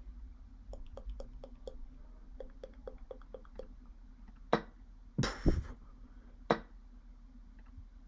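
Computer mouse clicking over an online chess board: a run of light clicks about four a second, then three louder, sharper clicks in the second half, the middle one a short double clatter.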